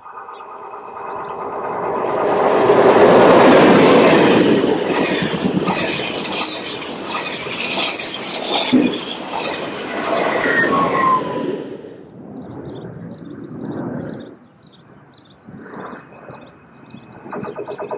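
SNCF TGV inOui double-deck trainset passing through the station. Its noise builds to a peak a few seconds in, stays loud with rapid wheel clatter, and falls away at about twelve seconds. Near the end a second train, a double-deck TER, approaches and grows louder.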